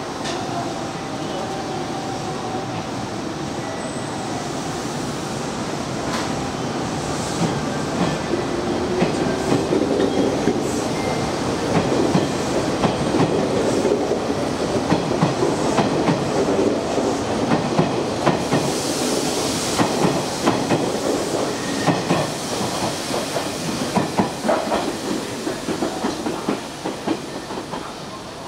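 Hanshin Railway electric train running on the tracks at Koshien Station, its wheels clicking over the rail joints. The sound grows louder about a quarter of the way in and drops away near the end.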